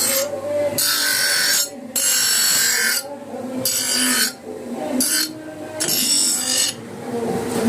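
Electric arc welding, the arc hissing and crackling in several short bursts of up to about a second each, stopping and restarting between them.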